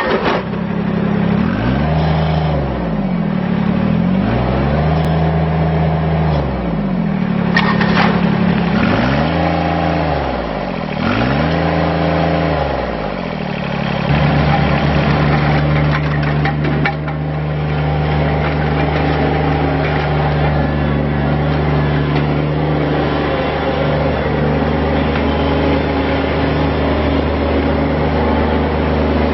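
Kubota BX25DLB's three-cylinder diesel engine revved up and down several times, then held at a steady speed for the second half.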